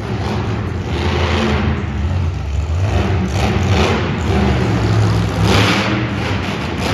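Monster truck engine revving hard in repeated surges as the truck drives and climbs over crushed cars, the loudest surge coming as it launches up over them near the end.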